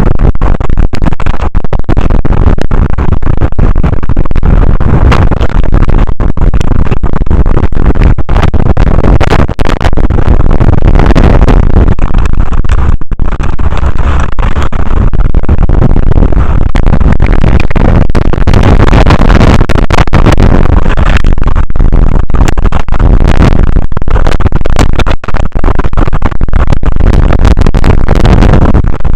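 Strong wind buffeting the microphone, very loud and distorted, with a heavy low rumble and brief dropouts throughout.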